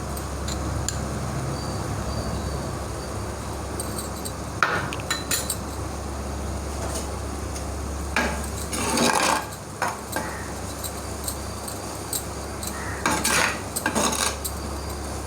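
A metal spoon clinking and scraping against a clay cooking pot as chilli powder is stirred into frying onions, in a few short bursts, over a steady low hum.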